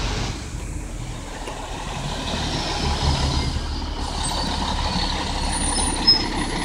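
A diesel city transit bus's engine running with a steady low rumble as the bus drives past and slows for a stop, among light traffic.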